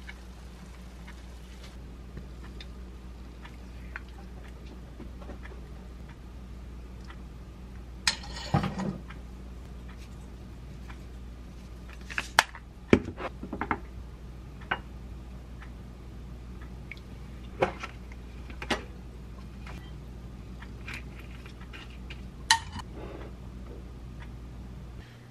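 Scattered clinks, knocks and short scrapes of kitchen utensils against a pan and ceramic dishes as a braised tofu dish is served into a bowl and set down. A steady low hum runs underneath. The busiest stretches come about eight seconds in and again around twelve to fourteen seconds.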